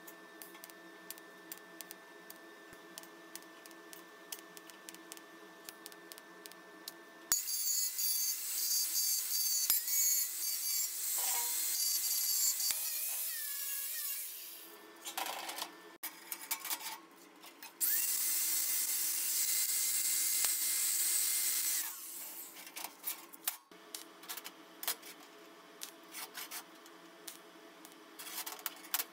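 TIG welding arc buzzing steadily on a stainless steel box. About seven seconds in, an angle grinder starts suddenly and grinds the weld seam with a loud hiss and whine for about seven seconds, then runs again for a few seconds later. The steady TIG arc buzz returns near the end.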